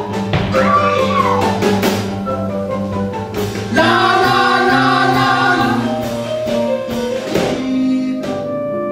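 Live stage band of keyboard, double bass and drum kit playing a show tune, with singing voices over it. The music jumps to a louder full chord about four seconds in and settles into a held chord near the end.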